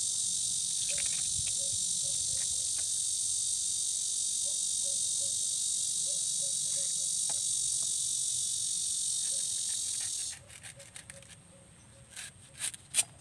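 Insects chirring in a steady, high-pitched chorus that stops abruptly about ten seconds in. After that come a few sharp clicks, the knife working a bamboo shoot.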